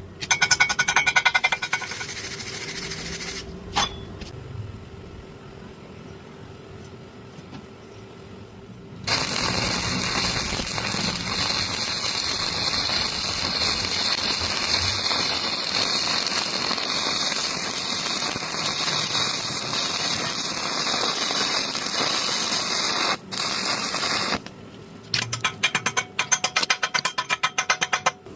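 Electric arc welding on pipe: a steady, even hiss for about fifteen seconds in the middle. Before and after it come short bursts of rapid ticking and tapping.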